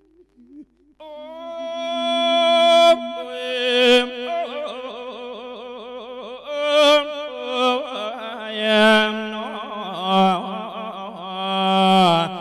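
A monk singing an Isan lae sermon chant into a microphone: long held, wavering notes that start about a second in.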